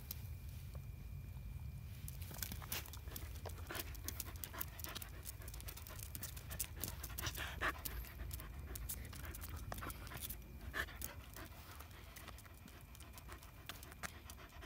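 Shetland sheepdog panting close to the microphone, with scattered clicks and rustles through it.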